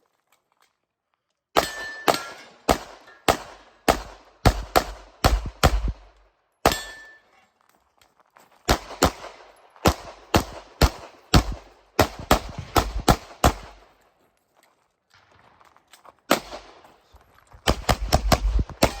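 Glock 34 9mm pistol fired in quick strings of shots, with short pauses between strings. The last string near the end is the fastest.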